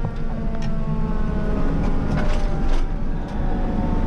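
Fire engine on the road: a steady heavy engine and road rumble, with several faint whining tones slowly falling in pitch.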